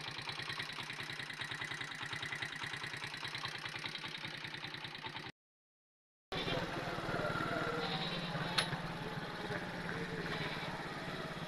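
Motorcycle engine running with a rapid, even putter, cut off by about a second of silence partway through and then running on, with one sharp click about eight and a half seconds in.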